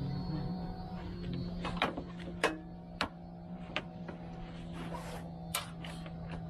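Soft background music with long held tones, over about five sharp clicks and knocks as the sail cover on a sailboat's boom is handled.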